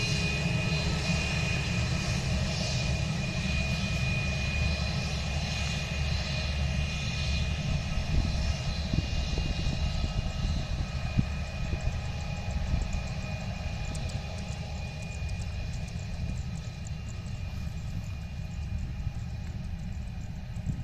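Jet airliner's engines after takeoff: a steady high whine over a low rumble that slowly fades over the second half as the aircraft draws away.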